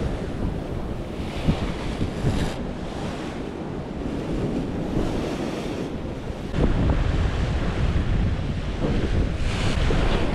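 Sea waves breaking and washing against a rocky shoreline, with wind buffeting the microphone. The rumble grows louder about two-thirds of the way through.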